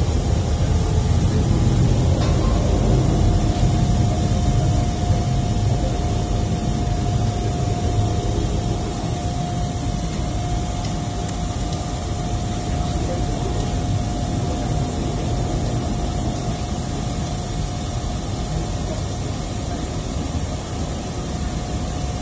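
Steady jet aircraft turbine whine: a high whistle and a lower hum held constant over a low rumble that eases off slightly after the first few seconds.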